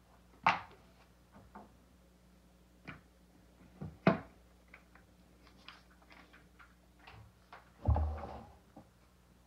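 A few sharp knocks and light clatter from a wooden tray of pastel sticks being handled and lifted off a wooden table, ending in a heavier thud as it is set down about eight seconds in.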